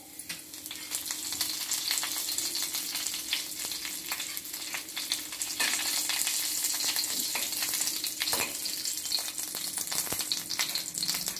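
A tempering of fresh curry leaves, dried red chillies, mustard seeds and cumin sizzling and crackling in hot oil in a metal kadai, building up over the first second or so. A spoon stirs and scrapes in the pan.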